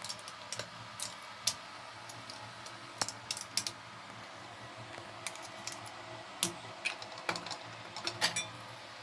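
Irregular small clicks and taps of a screwdriver and screws as the screws holding an exhaust fan's back cover are undone and the cover is handled.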